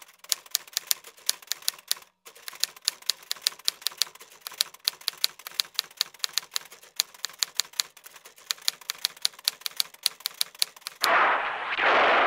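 Typewriter keys striking in a fast, even series of clicks, about six a second, in time with text being typed out, with a short break about two seconds in. Near the end a loud rushing noise cuts in.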